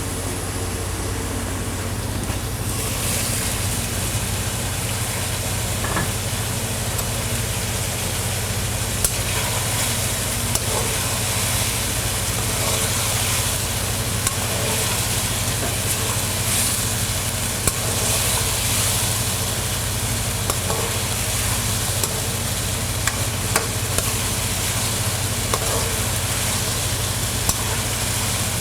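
Chicken karahi (chicken, onion, tomato and spices) frying with a steady sizzle in a hot pan. It is stirred, with occasional sharp ticks of the utensil against the pan, over a steady low hum.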